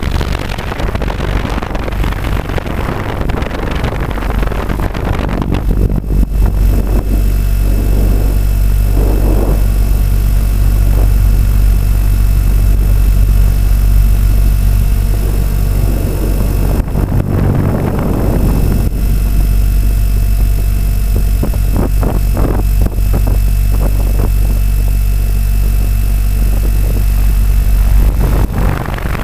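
Large radio-controlled AS350 scale helicopter heard from a camera mounted on it: its motor and rotor run with a steady low hum and whine. A loud rushing noise fills the first six seconds as it lifts off the ground and climbs, and swells again briefly in the middle.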